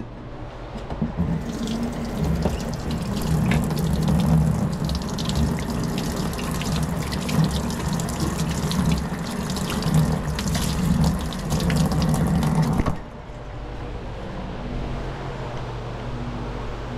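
Water running from a utility sink tap and splashing over a stainless steel trim molding as it is rinsed. The water starts about a second in and shuts off abruptly about thirteen seconds in, leaving a quieter steady low hum.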